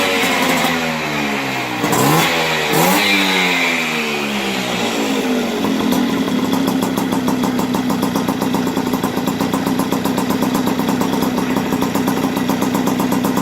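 Tuned Piaggio Si moped's two-stroke engine, bored out with a 65 cc Polini kit and running through a Giannelli exhaust with a carbon end can. It is revved in quick blips for the first few seconds, then settles into a steady idle.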